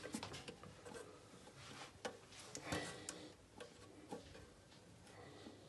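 Faint scattered clicks and light rubbing of small plastic and rubber parts handled by hand while a new rubber diaphragm is fitted into a toilet cistern's fill valve.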